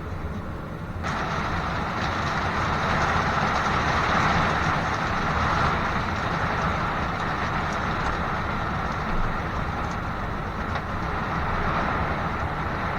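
Heavy rain pouring down on the roof, a steady rushing hiss that grows suddenly louder about a second in and then holds.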